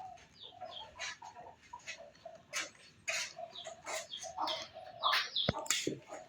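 Animal calls: a run of short, repeated clucking or chirping calls with sharp bursts between them.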